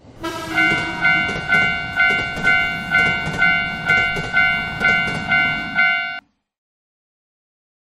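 Japanese level-crossing warning bell ringing its "kan-kan" about twice a second over the rumble of a passing train; both cut off suddenly about six seconds in.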